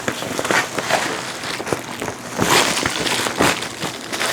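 Rustling and crackling of packaging, with irregular sharp crackles and knocks, as the carpet cleaner's hose is taken out and unwrapped; loudest bursts about two and a half and three and a half seconds in.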